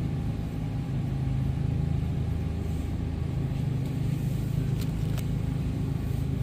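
Steady low machine hum, with a few faint clicks about five seconds in.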